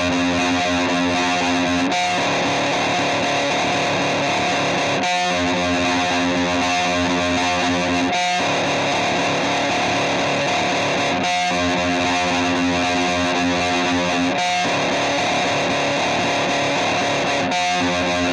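Music: a heavily distorted, effects-laden electric guitar holding sustained chords that alternate between two shapes about every three seconds in a slow repeating cycle, at a steady loud level.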